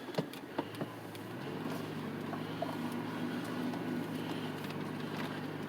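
Truck engine running steadily, its hum stepping up in pitch and level about a second and a half in, as when it is given a little throttle. A few light clicks near the start.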